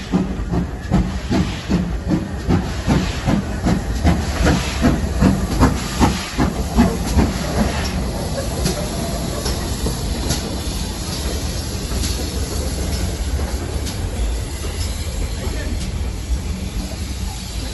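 Steam locomotive working a train: a steady rhythm of chuffing exhaust beats, roughly two a second, for the first seven seconds or so, giving way to a steady hiss and rumble of the moving train with a few sharp clicks.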